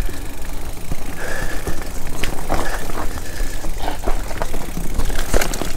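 Mountain bike riding along a bumpy dirt singletrack: a steady low wind rumble on the mic, with frequent clicks and rattles from the bike over the rough ground.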